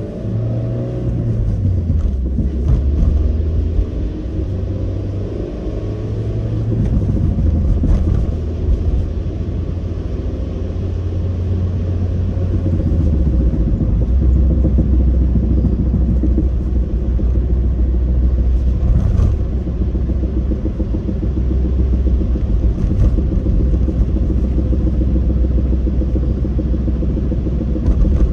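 Suzuki Swift Sport ZC31S heard from inside the cabin while driving: a steady low rumble of engine and road noise, the engine note rising and falling several times in the first half, then holding steady. A few faint knocks come through, the front-end knocking that was later traced to worn strut upper-mount bearings.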